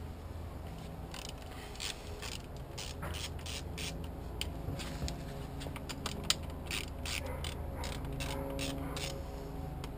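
Hand socket ratchet on a long extension clicking in quick irregular runs as the 10 mm carburetor mounting bolts of a 1989 Evinrude V4 outboard are backed out.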